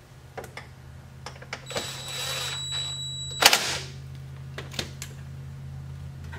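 Cordless driver running a bolt in, a high whine for under two seconds that ends in a short, loud burst as it stops. Scattered clicks and knocks come from plastic trim and tools being handled.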